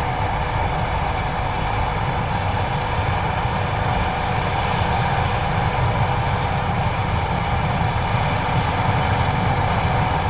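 John Deere 9570STS combine running steadily while harvesting corn: an even mechanical drone of engine and threshing machinery, with several steady tones over a dense low rumble.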